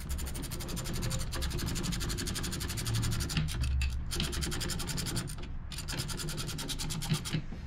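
Hand ratchet clicking rapidly and evenly, in runs broken by a couple of short pauses, as it turns a mounting bolt on a 4G63 engine's alternator.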